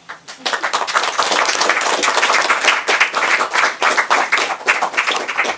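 A small group applauding with many hands clapping. It builds up in the first half-second, holds steady, and fades away at the very end.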